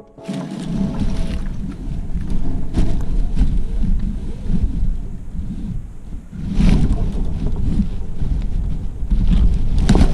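Wind buffeting the microphone of the drone's GoPro Session 5: an irregular low rumble that swells and fades in gusts.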